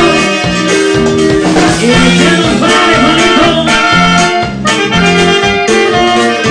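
Live norteño band playing an instrumental passage between sung lines: saxophone and button accordion carry the melody over a steady, bouncing bass line.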